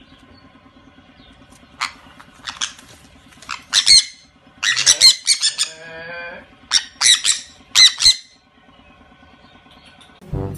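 Sun conures squawking: a run of short, sharp screeches from about two to eight seconds in, with a lower, wavering call in the middle.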